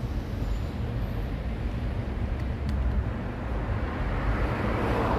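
Steady low rumble of street traffic, swelling as a vehicle passes near the end.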